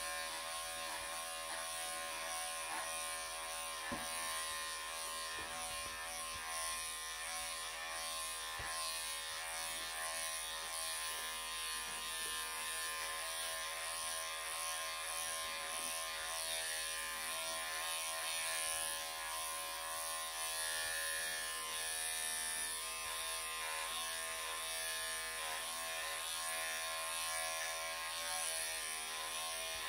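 Wahl cordless electric pet clippers running with a steady buzz as they shave off a longhaired Persian cat's coat.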